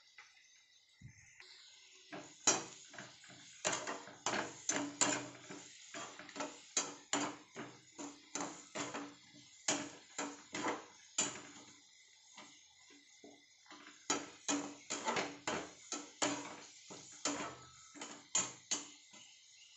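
Flat steel spatula clanking and scraping against a stainless steel kadai while food in oil is stirred. The strikes are irregular, roughly two a second, with short pauses near the start, about two thirds of the way through and near the end.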